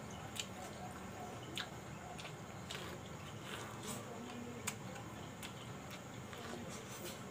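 A person eating corn on the cob: biting kernels off the cob and chewing, with irregular sharp wet clicks and smacks.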